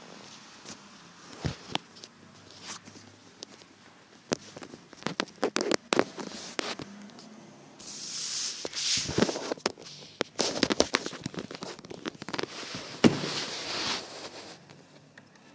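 Handling noise of a phone being moved and set in place: scattered taps and knocks on the body and the microphone, with two stretches of loud rubbing and rustling against it in the second half.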